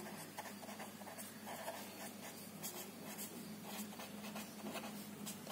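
Pen writing on notebook paper: a quick run of short, irregular scratching strokes, over a faint steady low hum.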